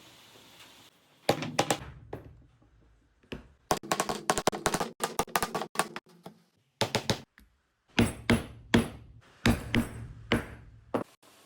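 Hand tools tapping and knocking on a work surface in quick clusters of sharp clicks, with short pauses between the clusters.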